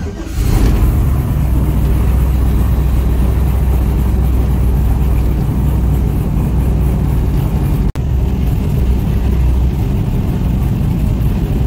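Airboat's engine and big aerial propeller opening up suddenly to loud running, then holding a steady deep sound as the boat travels along the channel. The sound cuts out for an instant about eight seconds in.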